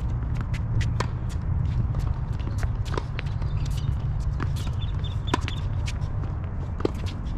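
Tennis rally: sharp pops of rackets striking the ball and the ball bouncing on a hard court, several times over, above a steady low rumble.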